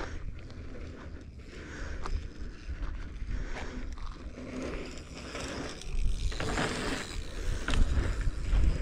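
Wind rumbling on the body-worn camera's microphone, with scuffs and scrapes on loose dry dirt, louder from about six seconds in.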